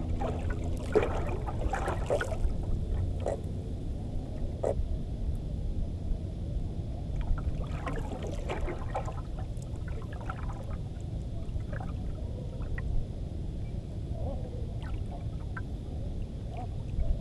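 Wind and water around a small fishing boat at sea: a steady low rumble with scattered light knocks and short splashes.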